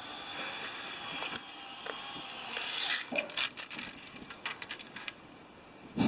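Steel tape measure being pulled out and set against the PTO bolt, with a run of light clicks and rattles from about halfway through.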